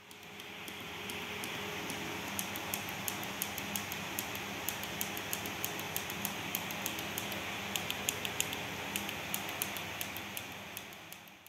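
Small tactile push-button switch pressed over and over, sharp little clicks coming irregularly two to four times a second, over a steady hiss of room noise. Each press steps the digit shown on an Arduino-driven 7-segment display.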